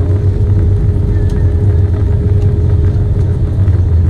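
Cabin noise of an Airbus A320 rolling along the runway after touchdown: a loud, steady low rumble with a thin steady hum above it.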